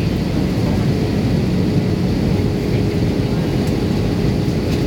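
Steady engine and airflow noise inside the cabin of an Airbus A320 descending on approach, with a faint steady hum running under it.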